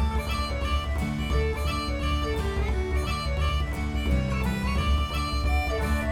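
Background music: an upbeat folk tune on fiddle and guitar over a steady bass.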